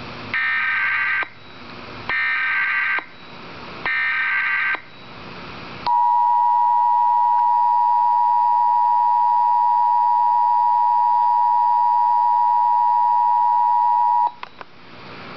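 Emergency Alert System tones: three bursts of SAME digital header data, each about a second long, encoding a severe thunderstorm warning, followed by the two-tone EAS attention signal held steady for about eight seconds and then cutting off suddenly.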